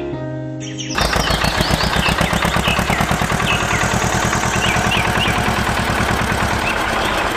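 A small engine starts running suddenly about a second in, with rapid even firing pulses, about ten a second. Birds chirp over it.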